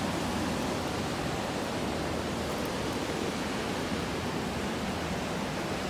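Steady rushing of water pouring over a low dam spillway, an even hiss at a constant level.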